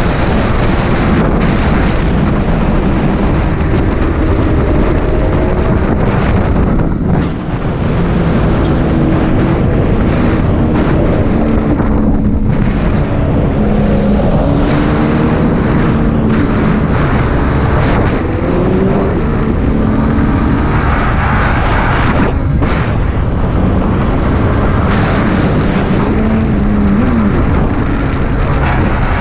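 Sport motorcycle engine running hard at road speed under heavy wind noise on the microphone. The engine note rises and falls with the throttle, with brief dips about seven seconds in and again past twenty seconds.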